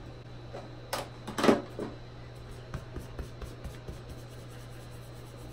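Small objects being handled: two sharp knocks about a second in and half a second later, then faint taps and rubs, over a steady low hum.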